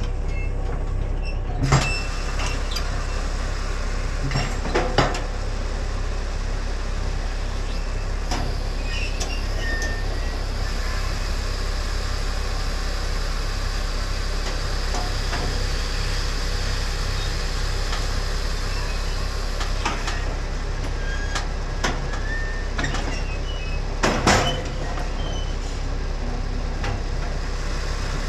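Big Bud four-wheel-drive tractor's diesel engine running steadily while the hitched field cultivator's wings are hydraulically unfolded, with a few metallic clanks from the implement frame: one about 2 seconds in, one near 5 seconds and the loudest about 24 seconds in.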